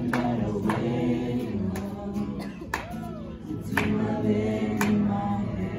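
Gospel worship music: several voices singing together over a beat that strikes about once a second.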